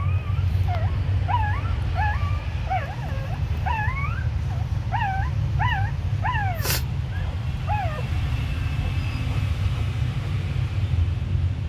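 Newborn puppies whimpering and squeaking while nursing: about a dozen short, high cries that rise and fall, thinning out after about eight seconds. A steady low rumble runs underneath, and a single sharp click comes a little past the middle.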